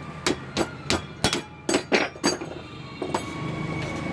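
A quick, irregular run of about eight sharp metallic knocks, stopping about two and a half seconds in, from work on a motorcycle rear shock absorber. A low steady hum follows.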